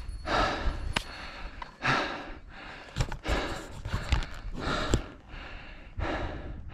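A climber breathing hard, with a loud breath about every one and a half seconds, and a few sharp clicks or knocks in between.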